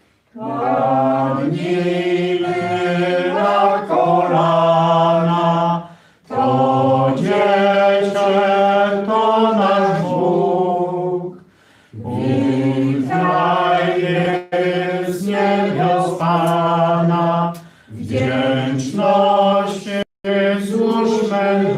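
Unaccompanied singing of a Polish Christmas carol, the melody carried in phrases of about five seconds with short breaths between them.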